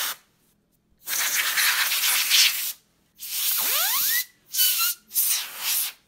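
Can of compressed air sprayed through its red straw in four short hissing blasts, blowing dust out of an open laptop's cooling fan. A rising whine climbs during the second blast.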